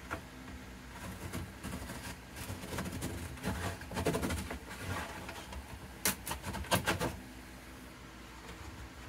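A small wooden block rubbed back and forth over a cedar guitar top in irregular scraping strokes, followed a little past the middle by a quick cluster of sharp clicks and knocks.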